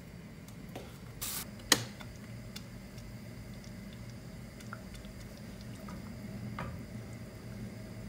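Thick pumpkin soup being stirred with a wooden spoon in a stainless steel pot on a gas stove: soft squelching and light ticks over a low steady hum. A short hiss and then a sharp click come about a second and a half in.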